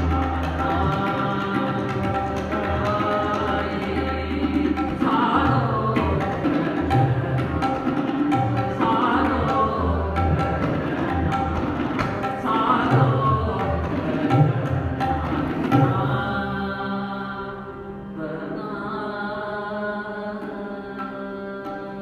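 Sikh kirtan: a male ragi sings devotional phrases over sustained harmonium notes, with tabla strokes. The tabla stops about three-quarters of the way through, leaving the held harmonium notes.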